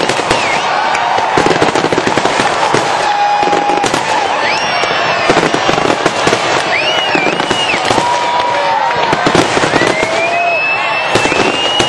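A fireworks display going off in dense, rapid bangs and crackles, with spectators' voices shouting and whooping over it.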